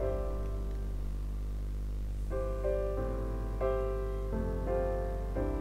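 Background music: slow, soft piano chords, each held for about half a second to a second before the next.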